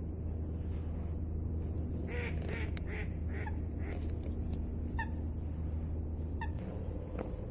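Ducks calling: a quick run of about six short calls about two seconds in, then two single calls later on, over a steady low rumble.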